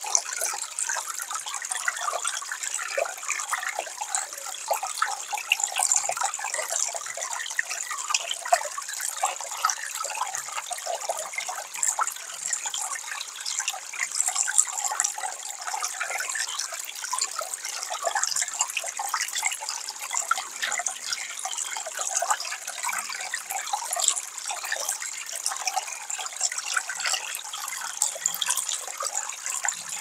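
Steady, crackly splashing of running water.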